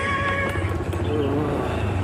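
Motorcycle engine running steadily as it travels along a dirt track, with background music playing over it.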